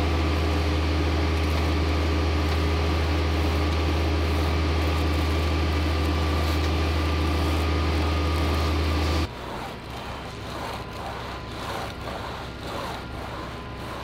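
A steady engine drone that cuts off abruptly about nine seconds in. After it, quieter irregular scraping of a board being dragged across wet concrete while a slab is screeded.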